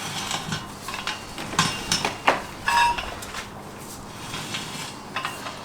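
Irregular metallic clinks and scrapes of a steel ground screw being turned into wet soil by hand, one clink near the middle ringing briefly.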